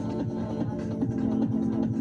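Electronic background music.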